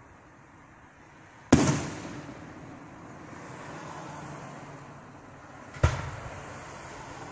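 Aerial fireworks bursting overhead: two sharp bangs about four seconds apart, the first the louder, each followed by a long, slowly fading rumble.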